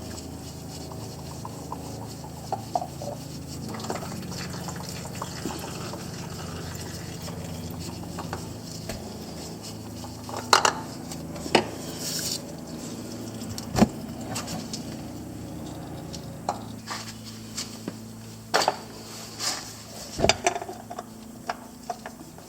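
Tools and metal parts clinking and knocking at an ATV's engine while the spin-on oil filter is being changed: a few sharp knocks, the loudest in the middle, over a steady low hum.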